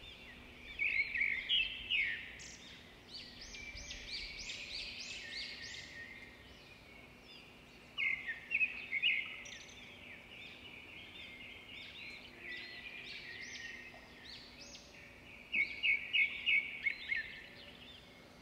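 Birds chirping in quick runs of sharp, high calls, with three louder flurries: about a second in, around eight seconds in, and in the last few seconds.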